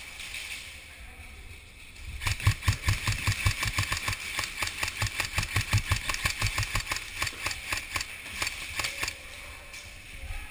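Airsoft gun firing on full auto: a long string of rapid shots from about two seconds in until about nine seconds, broken by a few short pauses.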